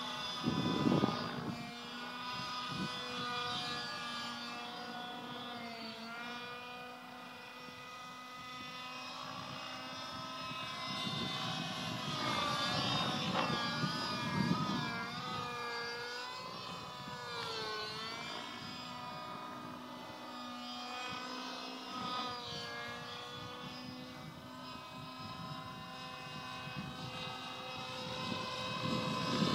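Glow-fuel engine of a radio-controlled model helicopter running, its pitch rising and falling repeatedly as the engine speed changes.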